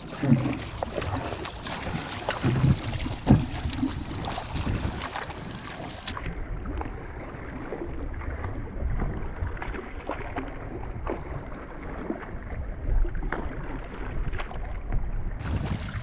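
Double-bladed paddle strokes on a Hurricane Santee 116 sit-inside kayak: the blades dip and splash in quick, irregular strokes as the boat moves along, with wind rumbling on the microphone.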